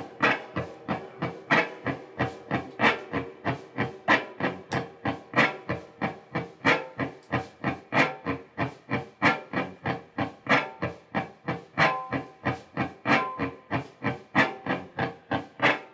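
Live electric guitar music played loud through an amplifier: a fast, even pulse of noisy strokes, about three a second, over a few held tones.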